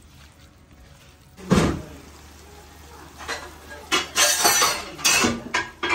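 Kitchen cookware sounds: a single knock about a second and a half in, then a wooden spatula stirring and scraping chicken pieces in a frying pan in quick, irregular strokes.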